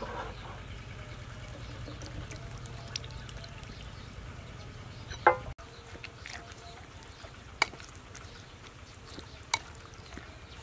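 Food-preparation handling sounds: scattered sharp clicks and knocks, with the loudest one just before halfway. A low steady hum sits under the first half and stops abruptly about halfway through.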